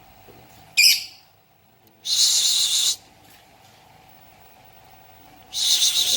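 Pet lovebird giving three shrill, harsh calls: a short one about a second in, a longer rasping one lasting about a second, and another near the end.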